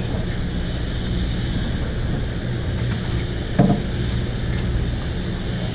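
Steady low hum of a fishing boat's running machinery, with a constant hiss. A brief, louder sound cuts in once about three and a half seconds in.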